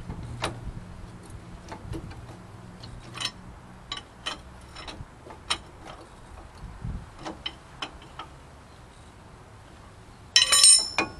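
Ratchet wrench clicking in short, irregular spurts as a brake caliper bolt is turned, with a louder metallic clatter about ten seconds in.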